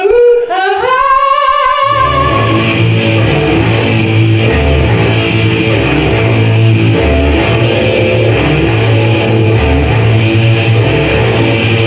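A man's voice through a microphone, with long held rising notes, for about two seconds; then loud rock music with guitar and a pulsing bass line comes in and runs on.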